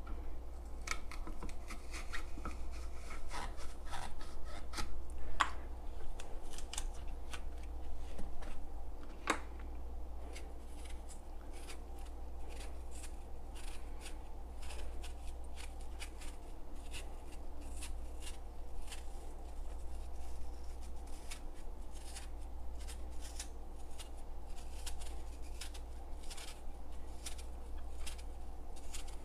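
Small kitchen knife peeling an apple by hand: many short scraping and cutting sounds as the blade works through the skin, over a steady low hum.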